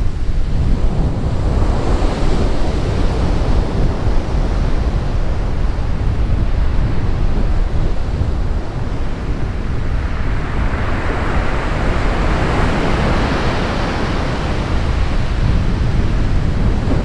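Strong wind buffeting the microphone with surf breaking on the shore, a wave's wash swelling for a few seconds from about ten seconds in.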